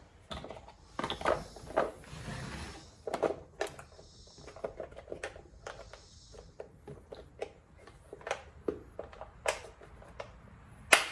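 Irregular clicks and knocks of hands handling and fitting parts on a chainsaw, with a few brief rustling hisses between them.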